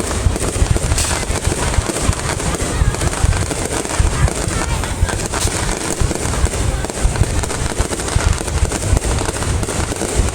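Fireworks display going off in dense, rapid succession: a continuous jumble of booms and crackling bursts, many shells overlapping with no pause.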